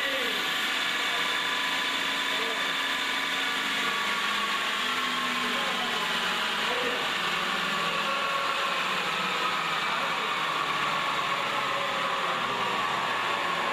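Automatic wood-leg turning lathe running: a steady machine whine made of several tones that drift slowly lower in pitch.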